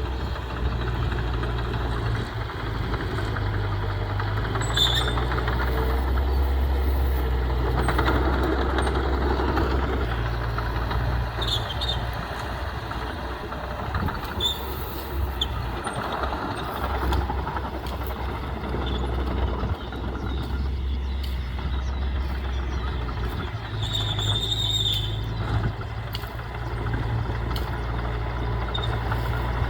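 Heavy diesel engine of earthmoving equipment running, its low note swelling and easing as it works, with a few short high squeaks.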